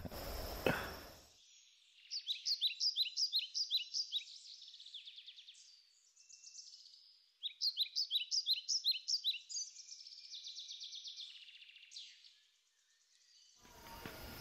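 A songbird singing: two runs of quick, high chirping notes, about five a second, each running on into a softer trill, against an otherwise silent background.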